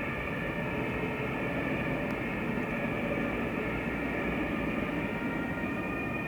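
Emergency vehicle sirens sounding together as a steady held tone that fades a little and swells again near the end, over city street traffic noise.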